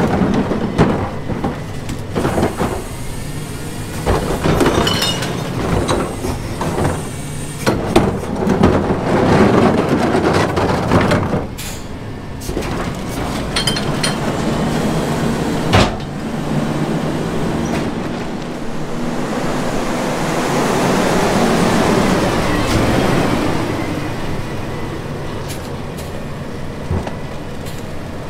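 McNeilus rear-load garbage truck at work on a recycling collection: repeated clattering and banging as material goes into the hopper over the running engine, one hard bang about halfway, then a long swell of rushing noise that rises and fades again.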